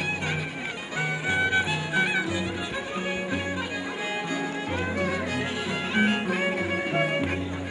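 Live Andean folk dance music on harp and violin: a repeating low bass figure under a high melody line.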